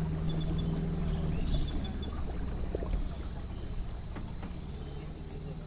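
Insects chirping in a steady rhythm, about two high chirps a second, over a low steady hum.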